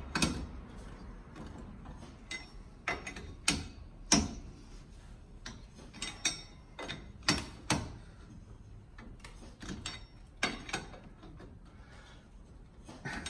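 Hand socket ratchet clicking in short, irregular strokes, with occasional metal clinks, as the nuts holding a wheel spacer to a UTV's front hub are tightened a little at a time.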